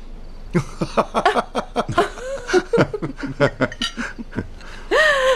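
People chuckling and laughing in short, rapid bursts, with a short drawn-out vocal sound near the end.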